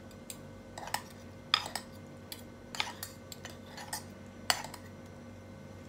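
Metal spoon and fork clinking and scraping against a pan as meatballs in broth are stirred: a dozen or so light, irregular clinks, the loudest about one and a half seconds in.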